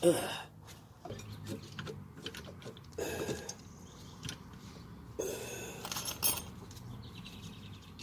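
Small metallic clinks, clicks and scrapes of drum brake hardware, the shoes and their springs, being turned and fitted by hand, with a sharp knock right at the start.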